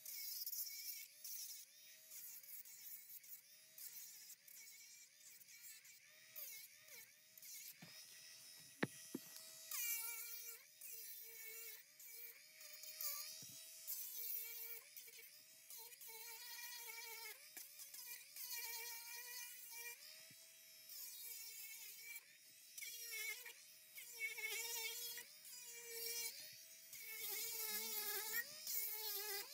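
Small electric hand tool's motor whining, its pitch repeatedly sagging and recovering about once or twice a second as it is pressed against the work, over a faint high hiss, with a single sharp click about nine seconds in.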